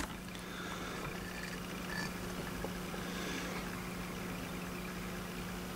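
Steady low hum over a faint, even hiss: background noise with no distinct events.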